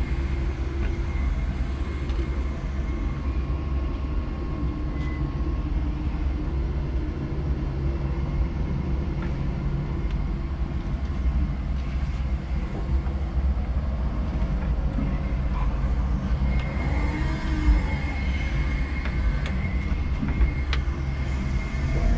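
5-ton electric forklift driving through the warehouse: a steady low rumble from the truck rolling over the floor, with a faint high electric-motor whine that comes and goes and a few light ticks and rattles.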